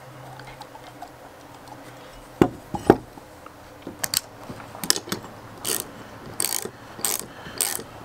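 Two knocks as the rubber Timbren bump stop and its steel bracket are set down on a wooden table, then a hand ratchet clicking in short strokes, about one every 0.6 s, starting a little past halfway. The ratchet is snugging the bolt that fastens the bump stop to its frame-mount bracket.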